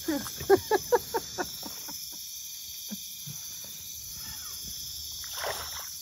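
Steady high chirring of night insects, with a quick run of about six short calls, each falling in pitch, in the first second and a half, and a splash in the water near the end.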